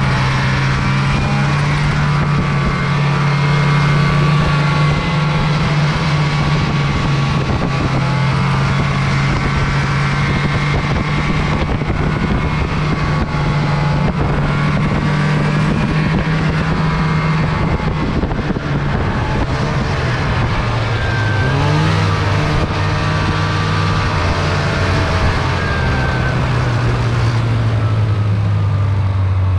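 Snowmobile engine running under steady throttle while riding, its note holding even for most of the time. About two-thirds of the way through the pitch wavers and drops, and it settles lower near the end as the sled slows down.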